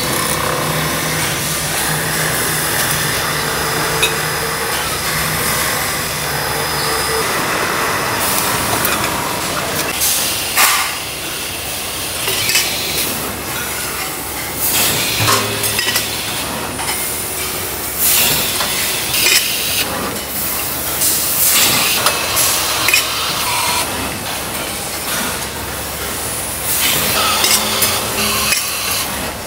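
Metal-forming machinery in a metal water bottle factory. A steady machine hum with a low tone runs for the first several seconds, then gives way to irregular metal clanks and clinks over a constant hiss.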